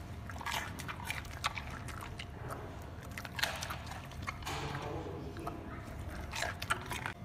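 Giant panda biting and crunching pieces of raw carrot, a series of irregular crisp crunches with a few louder bites.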